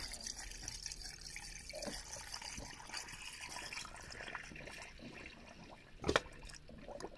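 Coolant trickling and hissing out of an opened bleed valve on a Porsche Panamera's cooling system as trapped air is bled off, with small clicks and a sharp knock about six seconds in.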